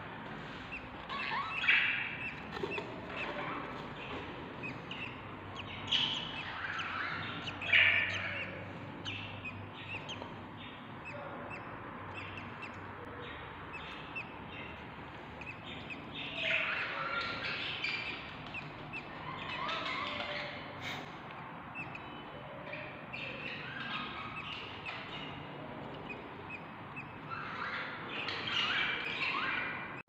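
Budgie parents and their days-old chicks chirping, in repeated short bursts of high squeaky calls: the chicks begging to be fed.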